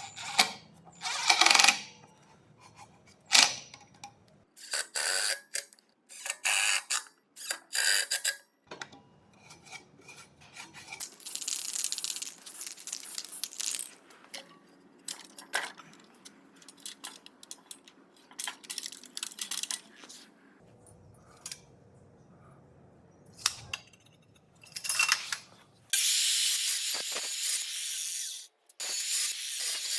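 Scattered metallic clinks, rattles and short scraping bursts, like steel parts and tools being handled on a bench, then a long steady hiss near the end that breaks off briefly and starts again.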